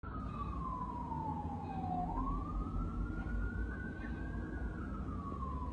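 A siren wailing slowly: one tone falls, rises again about two seconds in, then falls once more, over a low steady rumble.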